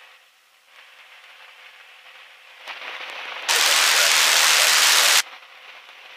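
Aircraft radio static heard through the intercom: a faint steady hiss that swells, then a loud, even rush of static switches on suddenly about three and a half seconds in and cuts off abruptly under two seconds later.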